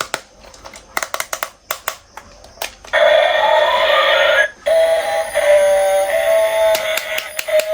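Scattered sharp clicks and taps, then about three seconds in a loud electronic tone sequence with a rising glide. It stops briefly and resumes as a steady held tone.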